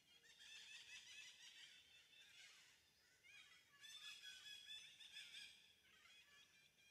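Faint chorus of many birds chirping and twittering, in two spells a little over a second apart.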